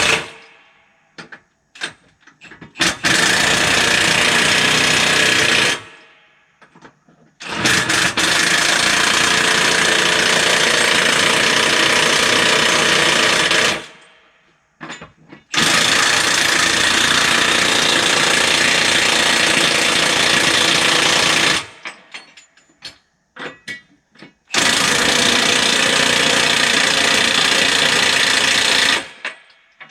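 Milwaukee one-inch cordless impact wrench hammering hard as it tightens the lug nuts on a skidder's dual tire: a brief burst about three seconds in, then three long runs of about six seconds each, with short pauses between them.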